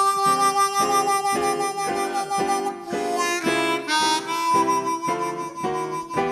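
Harmonica playing a slow melody in long held notes over keyboard chords struck in a steady pulse about twice a second, an instrumental break between sung verses.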